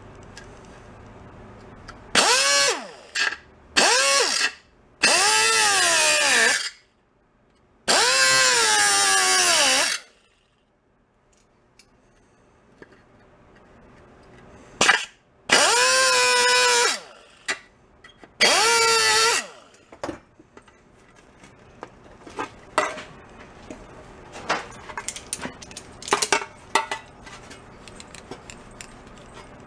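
Pneumatic grinder with a small disc grinding a sheet-metal bicycle tank: six short loud runs in the first twenty seconds, its whine sliding up and down in pitch. After that come scattered light metallic clicks and clinks.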